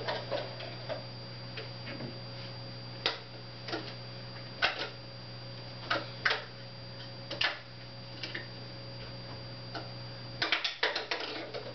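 Irregular sharp clicks and taps of small hard objects being handled, a dozen or so spread out and then a quick run of clicks near the end, over a steady electrical hum.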